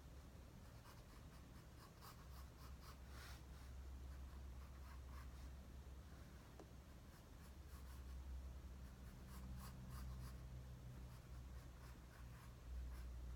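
Faint scratching strokes of a drawing tool on paper, coming in short quick runs with pauses between, over a low steady hum.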